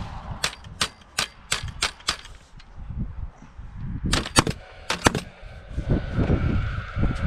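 Paslode cordless gas framing nailer firing nails into timber framing: six quick shots in about two seconds, then two close pairs of shots a couple of seconds later.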